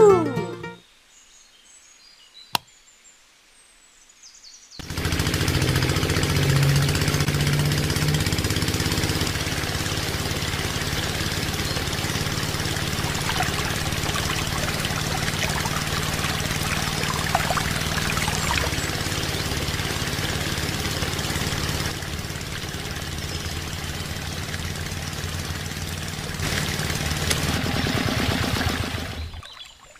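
Miniature belt-driven water pump, powered by a small electric motor, running steadily as it pumps water. It starts abruptly about five seconds in, after a single click, and cuts off near the end.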